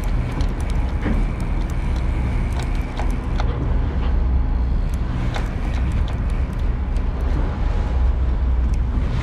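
A boat's engine running steadily under way while trolling, a low drone, with a few light clicks over it.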